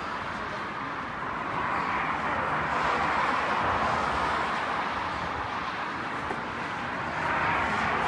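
Steady noise of distant road traffic, an even hiss with no distinct events.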